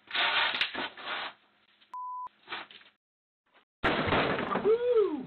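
A loud, rough noise lasting about a second, then a short steady one-tone censor bleep. After a moment of silence comes another loud, rough noise with a pitched sound that rises and then falls near the end.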